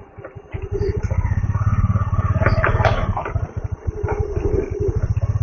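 Motorcycle engine running under way, its firing a fast, even pulse, coming in about half a second in.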